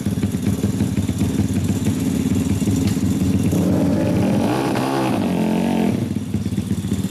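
Custom Honda Monkey's small four-stroke single engine, fitted with a large aftermarket silencer, running at a pulsing idle. A little past halfway it revs up, holds briefly, then drops back to idle as the bike pulls off.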